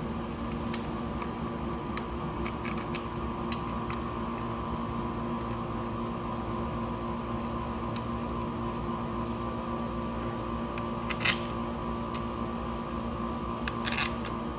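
Scattered light metallic clicks and taps of bolts being handled and threaded by hand into a Honda Navi's left crankcase (CVT) cover, with a sharper click about eleven seconds in and a quick cluster near the end. A steady background hum runs underneath.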